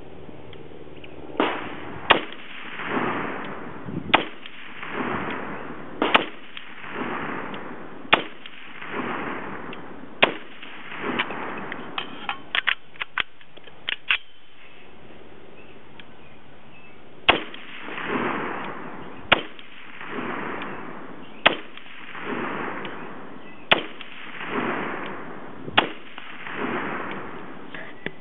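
A 6mmAR varmint rifle, an AR-15 chambered in 6mm AR with a 24-inch barrel, fired shot after shot about every two seconds, each sharp crack followed by a rolling echo lasting about a second. Midway there is a pause broken by a few lighter clicks before the shooting resumes.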